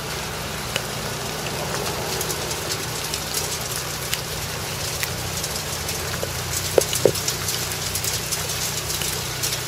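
Hail falling: a dense spread of small ticks and taps that gets heavier partway through, over a steady low hum.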